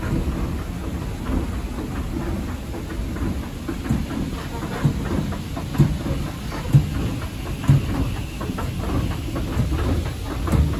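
Original 1960s Montgomery single-file escalator running, heard while riding down: a steady low rumble with regular clacks about once a second through the middle of the ride.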